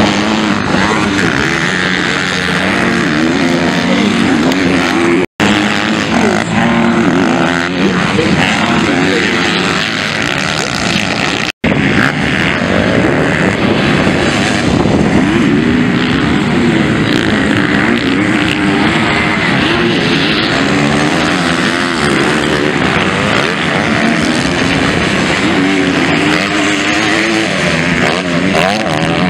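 Motocross bike engines revving hard on a dirt track, their pitch rising and falling continually as the riders accelerate and back off. The sound cuts out for an instant twice, about five and eleven seconds in.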